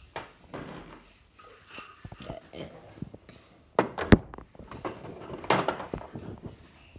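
Knocking and scuffling of things being handled and moved about, with two sharp knocks close together about four seconds in.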